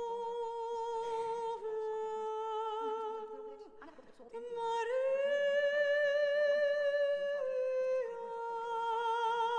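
A soprano voice holding long notes with vibrato: one long note, a short break about four seconds in, then a higher note reached with an upward slide, held, and stepped down twice near the end.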